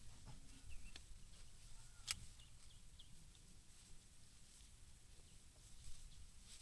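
Near silence: faint outdoor background with one sharp click about two seconds in and a few faint, short, high chirps.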